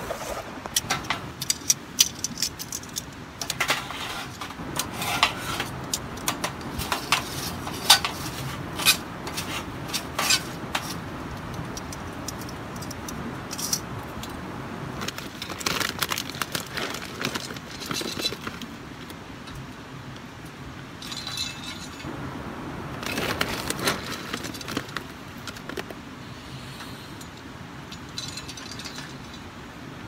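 Wood pellets burning in a small metal burner, with many sharp crackles and pops over a steady low rush of flame. The pops are densest in the first ten seconds, and a few longer rustling, rattling stretches come later.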